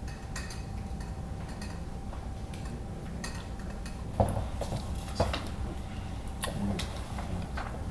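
A few glassy clinks and knocks over a low steady hum, the two loudest about four and five seconds in: a glass tumbler with ice being set down on a side table.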